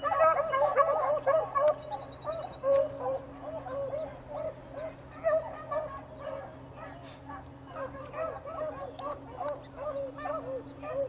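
A pack of beagles baying, many short overlapping bays from several hounds at once, busiest in the first few seconds: the hounds giving voice on a rabbit's trail.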